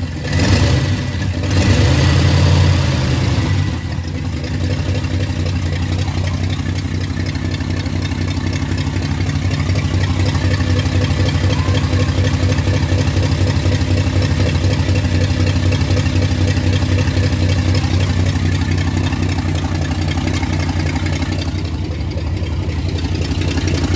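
Freshly rebuilt Ford 360 FE V8 engine running, revving up briefly in the first few seconds and then settling into a steady idle. The idle has been brought down by adjusting the throttle linkage, which had held it too high.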